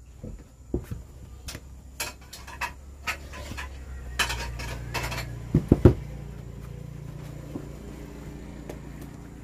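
Polished three-blade metal boat propeller clinking and knocking as it is turned over and rubbed with a cloth. The sharp clinks are scattered, and a few of the loudest knocks come a little over halfway through.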